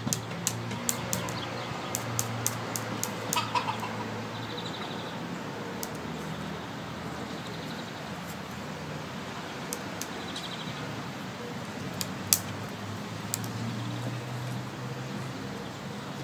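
Scattered light clicks and taps of a cat playing with a string around a wooden drying rack on a tiled floor, over a faint low hum and a few distant bird chirps.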